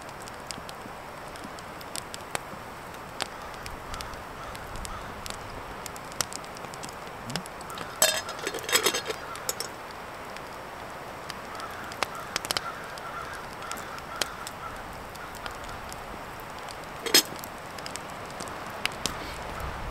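Wood fire crackling and popping steadily. A wooden spoon stirring in a metal cooking pot knocks against it in a quick cluster about halfway through and once sharply near the end.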